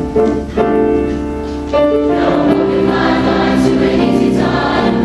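A small group of voices singing in harmony, holding long notes, with a louder new phrase coming in about two seconds in.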